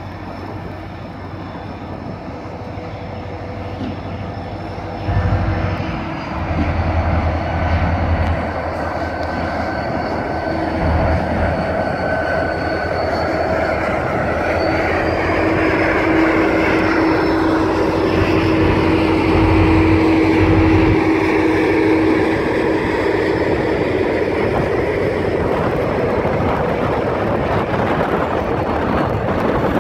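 Canadian Pacific diesel locomotive approaching and passing close by, its engine running louder as it nears, with a steady whine. Its train's cars then roll past on the rails.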